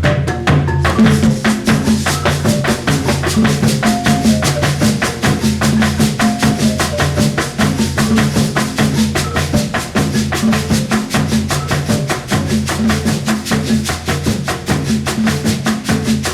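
Pacific Colombian percussion music playing a fast, steady rhythm: drums under rapid shaker strokes, with repeating low pitched notes.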